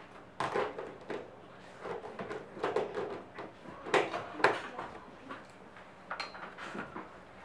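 Classroom bustle: irregular knocks, clatter and paper handling at children's desks, with faint bits of voices. The two sharpest knocks come about four seconds in.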